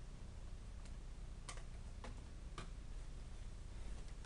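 A few light, irregular clicks and taps of small hard craft items being handled on a desk, over a low steady hum.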